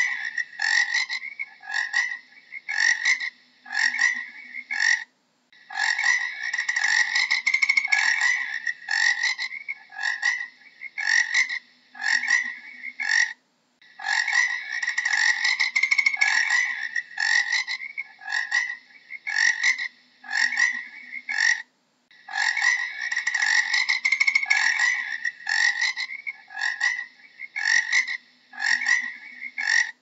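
Frogs croaking: a dense run of overlapping calls, then a string of separate short croaks. The pattern repeats about every eight seconds, with a brief silent break between repeats.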